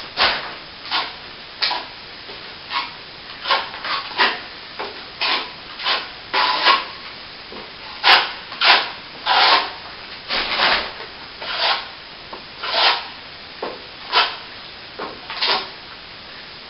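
Plastering trowel scraping a quick-setting cornice cement patch onto a wall in short, separate strokes, roughly one a second, some harder and louder than others.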